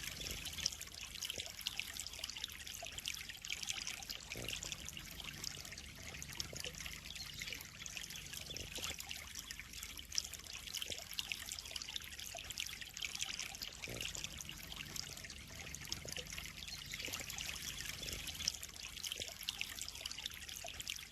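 Water trickling and splashing steadily into a koi pond, a constant bright splashy running sound.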